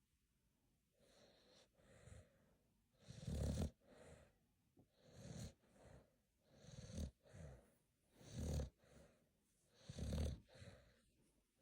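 A Staffordshire Bull Terrier snoring, with a snore on each breath about every second and a half; the loudest comes a little past three seconds in.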